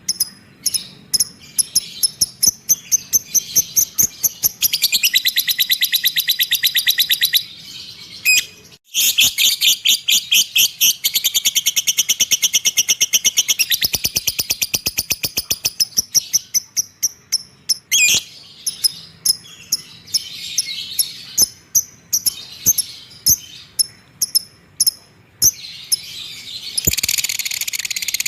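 Cage bird singing: quick series of high chirps broken by long, very fast trills, the longest lasting several seconds.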